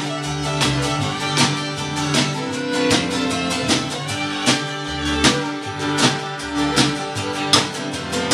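Country band playing live: strummed acoustic guitar and fiddle over an upright bass line, with a hand-beaten drum keeping a steady beat about every three quarters of a second.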